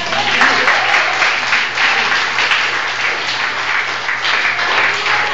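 Many people applauding, a dense clapping that starts loud and eases off slightly near the end.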